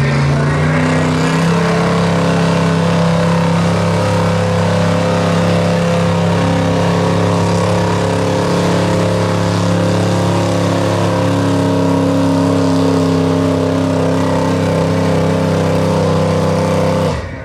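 Gasoline engine of a stock 1970s Dodge pickup running at steady high revs under heavy load as the truck drags a weight-transfer pulling sled; the pitch stays nearly constant for the whole pull and the sound cuts off abruptly near the end.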